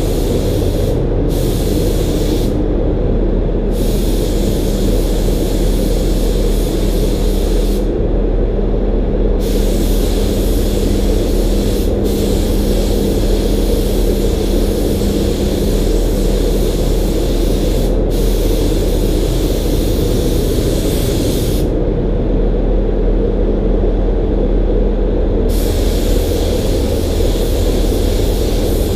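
DeVilbiss GTi gravity-feed spray gun hissing as it sprays primer, cut off briefly when the trigger is let go: about a second in, around three seconds, around eight seconds, and for several seconds past twenty. A steady low hum runs underneath.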